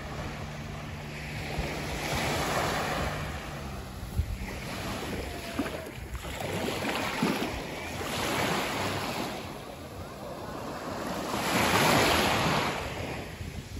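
Small sea waves washing onto a pebbly beach, each wash swelling and fading about every three seconds, four in all, the loudest near the end.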